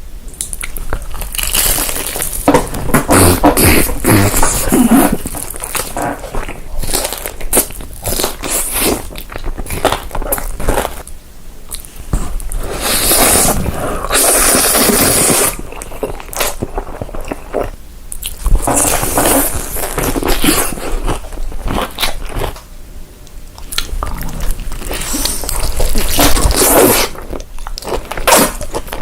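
Close-miked eating: crunchy bites and chewing, a dense run of irregular crackling crunches.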